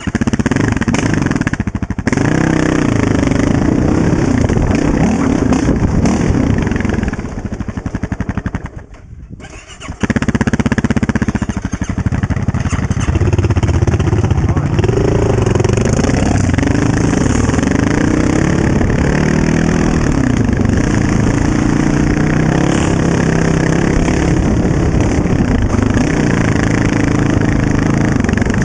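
Honda TRX700XX ATV's single-cylinder engine running on a trail, revving up and down as the throttle is worked. It goes quieter for about three seconds from around seven seconds in, then revs back up.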